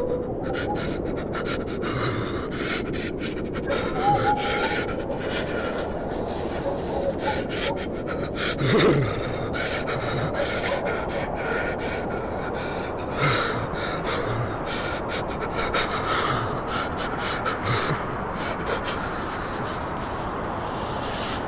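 A man shivering from cold, with shaky, gasping breaths, over a steady wind. Many short clicks and brief low voiced sounds break in throughout.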